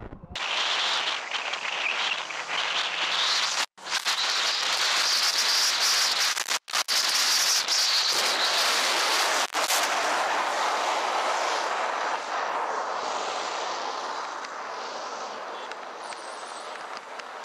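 Loud, steady rushing of wind and road noise from a motorcycle riding at speed, picked up by a rider-mounted camera's microphone, with two brief dropouts about 4 and 7 seconds in.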